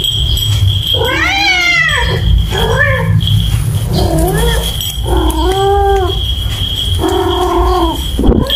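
Domestic cat yowling: five drawn-out, wavering calls a second or so apart.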